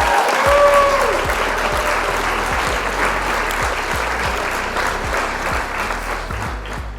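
A crowd applauding and cheering, with a few whistles near the start. It sits over background music and cuts off abruptly near the end.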